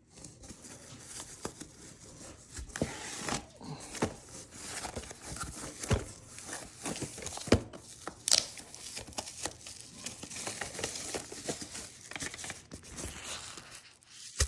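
Packaging being opened by hand: crinkling and tearing with scattered sharp knocks and clicks as the box and its wrapping are handled.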